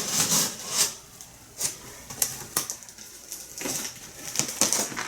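Cardboard shipping box being worked open by hand: irregular short scrapes, rustles and knocks of cardboard and tape.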